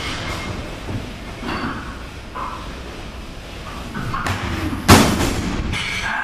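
Clanks and thuds of a loaded barbell with bumper plates being jerked from wooden jerk blocks. About five seconds in comes one loud bang: the 185 kg bar dropped from overhead back onto the blocks.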